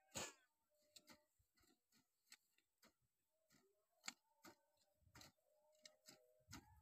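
Near silence broken by faint, irregular ticks, two or three a second, as hand hoes chop into the soil among potato plants.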